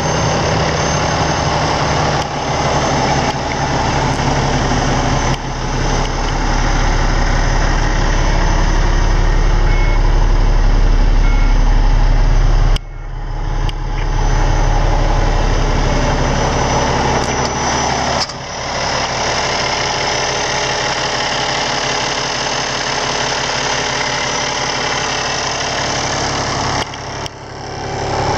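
Cummins diesel engine of a 2013 Volvo VNL day cab tractor idling steadily, with a few sudden dips in level.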